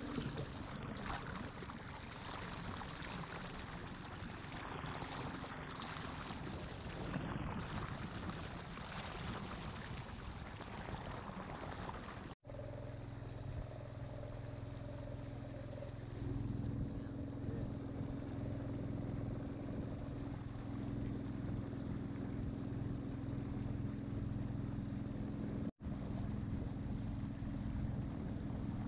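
Wooden river longboat under way: its motor running at a steady pace, with water rushing along the hull. The motor's low hum comes through clearer after an abrupt cut about twelve seconds in, and the sound drops out briefly once more near the end.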